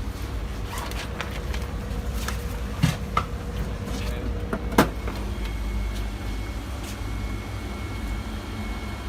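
Vertical continuous band sealer running with a steady low motor hum. A faint whine shifts higher about halfway through, and there are a few sharp knocks about three and five seconds in.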